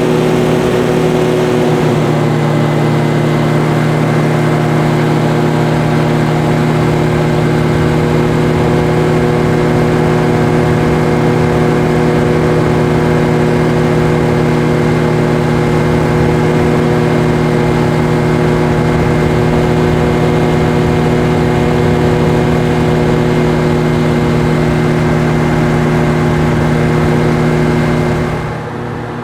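Hovercraft engine and lift/thrust fans running loud and steady, with a slight shift in pitch about two seconds in. Near the end the sound drops abruptly to a quieter, duller level.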